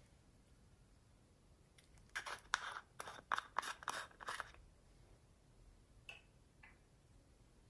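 Small plastic makeup pot being twisted and pried open: a quick run of sharp plastic clicks and scrapes lasting about two seconds, then two faint clicks.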